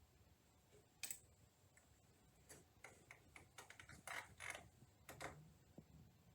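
Faint, irregular clicks and ticks: one sharp click about a second in, then a scattered run of them over the next few seconds.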